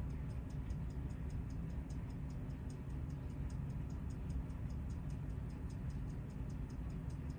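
Seiko 61RW hand-wound pocket watch (6110 movement) ticking steadily with its case back off, about six quick ticks a second: the movement is running.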